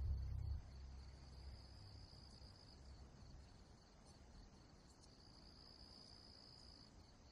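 Very quiet night ambience of crickets, a faint steady high trill, after a low rumble dies away in the first second.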